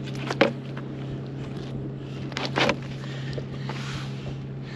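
Two short splashy thumps, about half a second in and again near the middle, as a large striped bass is hauled out of the water and swung into the boat by its lip, over a steady low hum.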